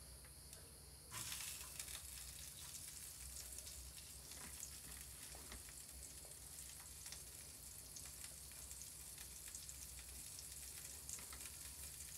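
Butter sizzling as it melts in a hot copper sahan over a wood fire, starting suddenly about a second in as the butter goes into the pan, then a steady faint hiss with scattered crackles.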